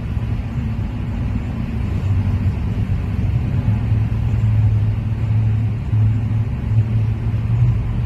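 Steady low rumble of a car driving along the road, engine and tyre noise heard from inside the cabin.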